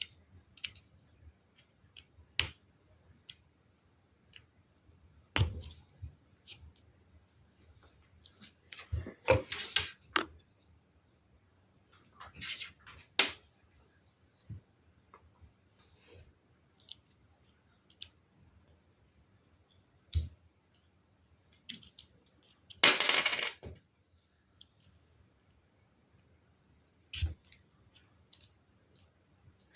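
Plastic LEGO Technic pieces clicking and clattering as they are handled and snapped together: scattered single clicks, a short rattle about nine seconds in, and a longer, louder clatter of loose pieces a little over twenty seconds in.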